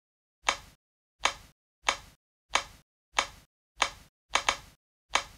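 Footstep sound effect: a steady run of short, evenly paced steps, about one and a half a second, with a quick double step a little past the middle.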